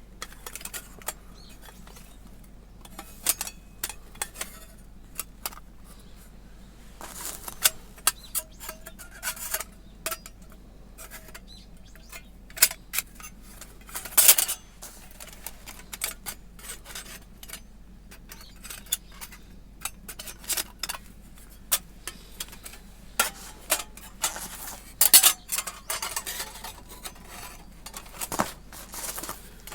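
Thin titanium fire-pit plates and parts clinking and clicking against each other as they are handled and slotted together, in irregular sharp taps. A few louder knocks ring briefly.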